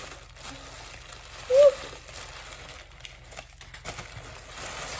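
Soft rustling and crinkling of packaging being handled and opened, with scattered small clicks. One brief hum from a woman's voice about a second and a half in is the loudest moment.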